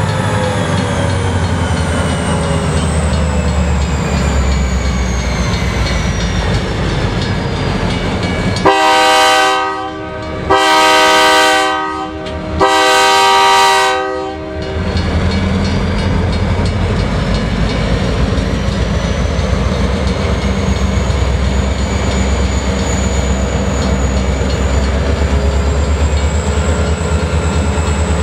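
Diesel-electric locomotives running with a steady low rumble and a high whine that falls in pitch over the first few seconds and rises again in the second half. About nine seconds in, a locomotive air horn sounds three blasts in a row, each about a second and a half long.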